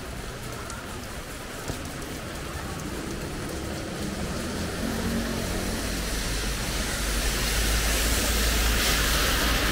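Steady rain falling, with a single sharp tap just under two seconds in. From about halfway a vehicle approaches on the wet road, its low rumble and tyre hiss growing louder toward the end.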